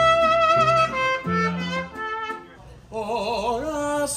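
Live mariachi band playing a slow song: long held melody notes over low bass notes, a short lull about two and a half seconds in, then wavering vibrato notes near the end.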